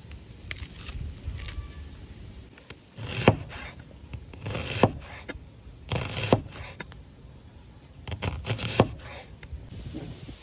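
Papery red onion skin being peeled off by hand with crackling and scraping, then a broad-bladed knife cutting down through the onion and knocking on a wooden cutting board, several sharp strokes roughly a second and a half apart.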